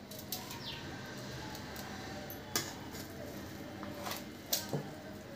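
Light clinks and taps of a steel serving spoon against a stainless steel plate as rice is dished out: a few scattered taps, the loudest about halfway through and two close together near the end, over low room noise. A short high chirp falls in pitch just after the start.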